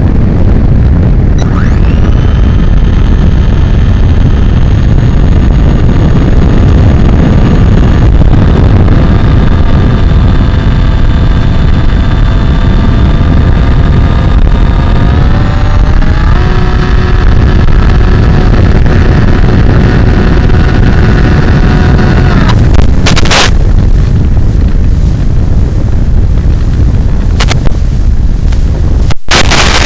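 Wind rushing over the FPV plane's onboard microphone, with the whine of its electric motor: the whine comes in about a second and a half in, steps up in pitch about halfway through, and cuts off about three-quarters of the way through. Sharp crackling bursts near the end.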